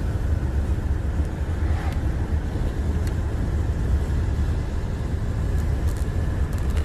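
Wind and road noise of a moving car with the side window open, heard from inside: a steady deep rumble of wind on the microphone with a hiss above it.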